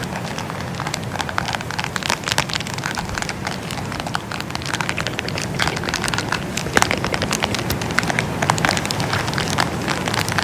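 Layered ASMR sounds: a dense run of irregular soft crackles and clicks over a steady windy-day hiss with a low rumble.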